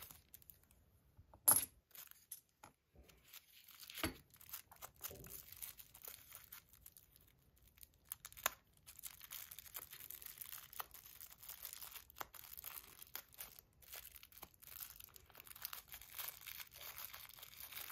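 Hands crinkling and peeling thin white tissue-paper wrapping off small parts, an intermittent soft crackle, with a couple of sharper clicks about a second and a half in and again about four seconds in.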